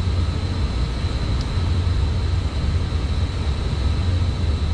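Steady low rumble of running mechanical equipment with a faint constant high whine, and one small click about a second and a half in as wire connectors are pushed back onto a terminal.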